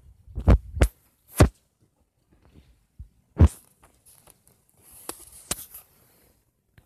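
About six sharp, irregular thumps, the loudest about a second and a half and three and a half seconds in: fingers tapping and handling the phone that is recording the screen while navigating the Bible app.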